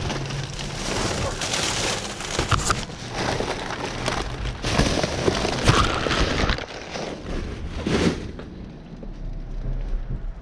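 Thin plastic trash bag crinkling and rustling as gloved hands pull at it and rummage through it, with scattered sharp knocks of items being moved; the handling eases off after about eight seconds.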